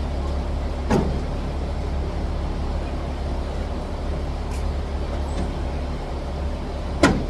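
A motor vehicle's engine running steadily with a low hum, with two sharp knocks, one about a second in and one near the end.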